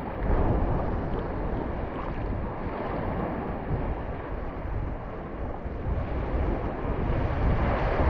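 Sea waves washing in shallow, choppy water, with wind buffeting the microphone in a steady low rumble.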